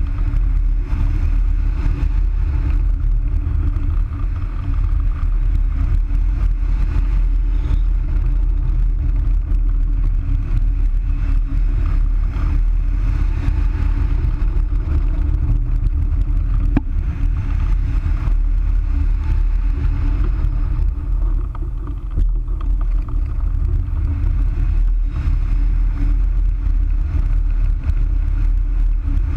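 Steady rush of airflow buffeting a camera mounted on the wing of a Wills Wing Falcon 3 hang glider in flight, a loud wind noise with a deep rumble.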